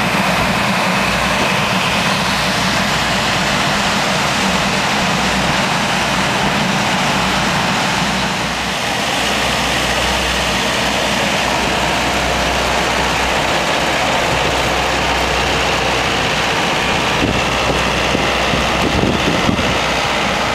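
A steady engine rumble with an even hiss of road or wind noise over it, unchanging throughout, dipping slightly about eight seconds in.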